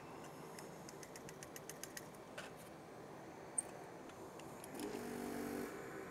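Faint clicks and ticks from a hand-held desoldering gun being handled, with one sharper tick about three and a half seconds in and a short low hum about a second before the end.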